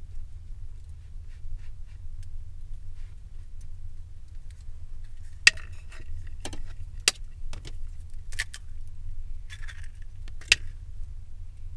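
An egg being cracked by hand: faint rustling of hands in flour, then a handful of sharp taps and clicks in the second half as the egg is knocked open and its shell set into a wooden bowl, over a low steady hum.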